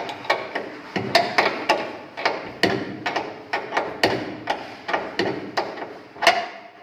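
A hammer striking the metal frame of a lift swing door in a fast run of sharp knocks, about four a second, each ringing briefly, with one harder blow near the end.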